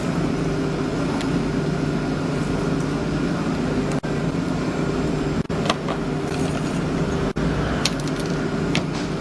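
Panel-furniture woodworking machinery running steadily: a constant mechanical hum with scattered light clicks and ticks, and the sound dropping out for an instant three times.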